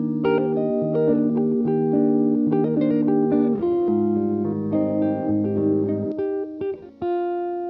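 Background music led by a plucked guitar playing chords, ending on a held chord that fades.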